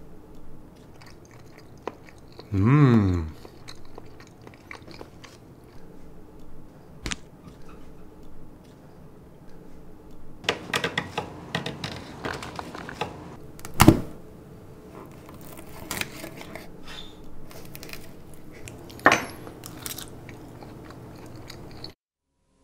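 Close-up chewing and crunching of food, with wet mouth clicks. About three seconds in, a short loud hum of the voice rises in pitch. A sharp knock comes about 14 s in. The sound cuts off suddenly near the end.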